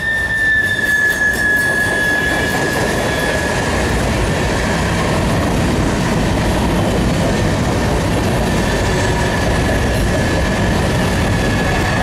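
Freight train cars rolling past close by: a loud, steady rumble of steel wheels on the rails. A high, steady wheel squeal runs over it, strongest in the first few seconds and again near the end.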